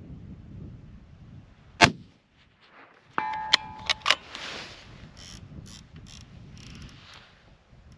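A single rifle shot from a Remington 700 in .308 Winchester fitted with a muzzle brake, about two seconds in. A second or so later come metallic clicks of the bolt being worked, with a short ringing tone among them, followed by scattered sharp clicks as the scope turret is dialled.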